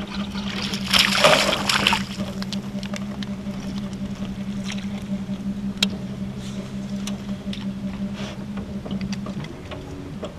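Boat motor running with a steady low hum that cuts off near the end, with a short burst of noise about a second in.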